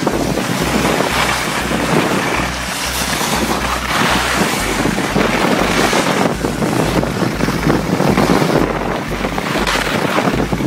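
Wind rushing and buffeting over the microphone of a camera carried by a skier going downhill, with the hiss of skis sliding on packed snow.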